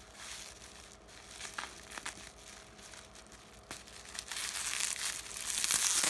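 Plastic packaging and packing tape crinkling and crackling as a heavily taped, bubble-wrapped parcel is worked open, getting denser and louder near the end.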